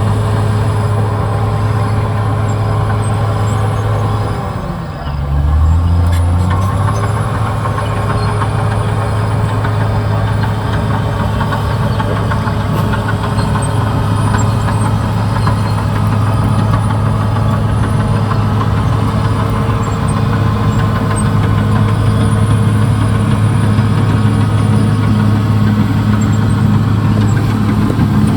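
CAT D6R XL bulldozer's diesel engine running steadily at working speed. About five seconds in, its pitch sags briefly and then climbs back up.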